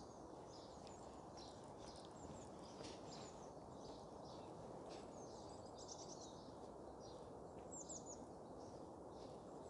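Faint birds chirping: many short, high calls scattered throughout, a little clearer around five to eight seconds in, over a low, steady background noise.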